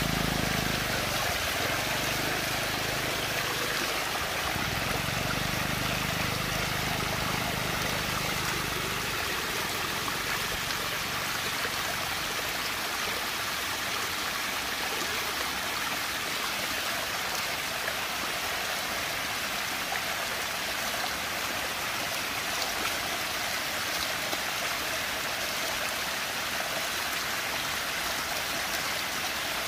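Water rushing and swirling steadily down a whirlpool vortex. A low hum sits under it and fades out about nine seconds in.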